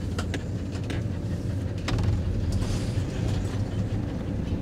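Motorhome on the move, heard from inside the cab: a steady low engine and road rumble with a few sharp knocks and rattles from the body and fittings, several in the first half-second and another about two seconds in.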